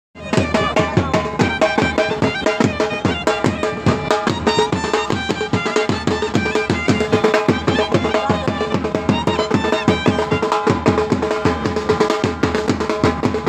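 Traditional Pashto instrumental folk music: a fast, dense drum rhythm under a steady melody line.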